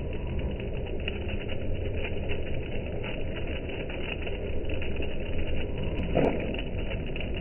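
Heavy wet snow falling on corrugated metal roofs: a dense, light pattering of tiny ticks over a steady low rumble, with one short rising sound about six seconds in.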